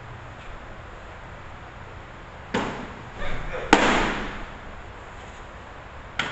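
A pitched softball smacks into a catcher's leather mitt with a loud, sharp pop that echoes briefly in the cage. A couple of softer knocks come before it, and a short snap near the end comes as the throw-back lands in the pitcher's glove.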